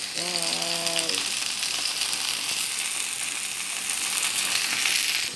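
Marinated chicken breast frying in oil in a pan, a steady sizzling hiss with fine crackle that grows a little louder near the end.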